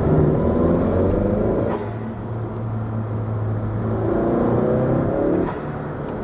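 Turbocharged 1.5-litre four-cylinder (L15B7) of a 2017 Honda Civic fitted with a cold air intake, pulling under acceleration. Its pitch rises twice, with a steadier stretch between the pulls, and there is a rush of intake air above the engine note.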